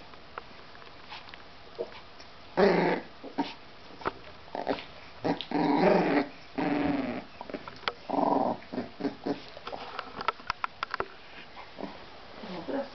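Short growls from American Staffordshire Terrier puppies and their mother, four bursts in the first half, then a run of light clicks and scuffles.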